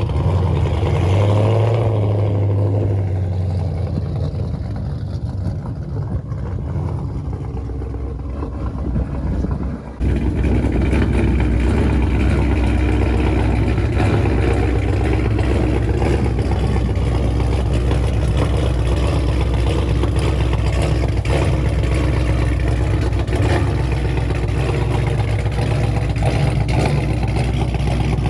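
Dodge Daytona V8 engine running rough: a brief rev that settles back in the first few seconds, then, after a cut about ten seconds in, a steady idle with a rapid knock in it, which the owner suspects is rod knock.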